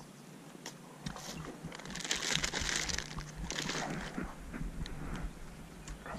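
Plastic bait bags and packaging crinkling as they are handled, then crunching footsteps through dry grass, dead stalks and twigs on the riverbank.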